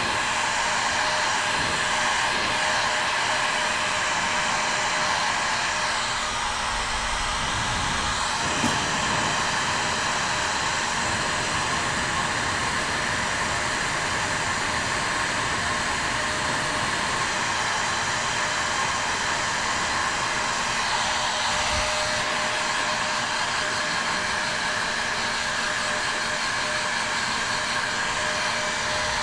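Electric motor running steadily with rushing air, like a blower or heat gun, with a brief knock about nine seconds in.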